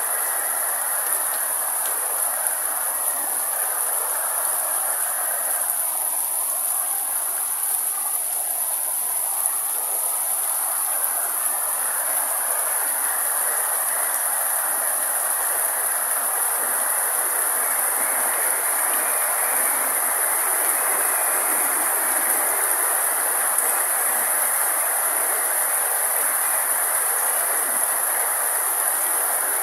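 Steady rain falling, an even hiss, with a continuous high-pitched shrill of insects above it.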